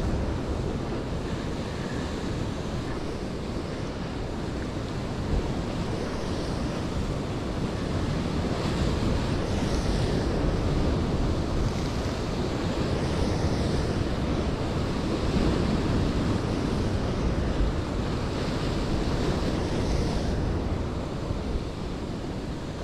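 Ocean surf breaking against rocks, a continuous wash that surges and eases every few seconds, with wind rumbling on the microphone.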